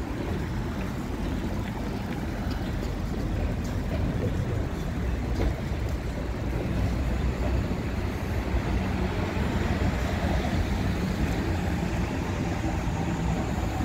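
City street traffic: a steady low rumble of passing cars and other vehicles, with a faint engine hum in the middle.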